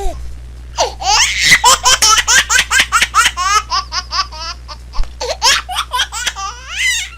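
Cartoon laughter of Yakky Doodle and Chopper the Dog: a long run of quick, high-pitched laughing pulses starting about a second in, several a second.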